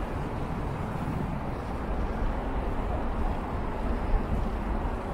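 Wind buffeting the microphone during a bicycle ride: a steady, deep rushing noise.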